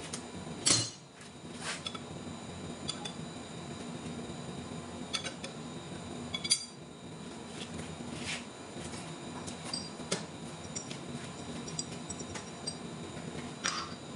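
Scattered metal clinks and clanks of tools and parts being handled, the loudest about a second in, over a steady low hum.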